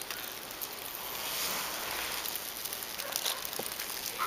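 Soft, steady rustling and handling noise that swells about a second and a half in, with a few faint knocks, as a wooden inner cover board is lifted off a beehive.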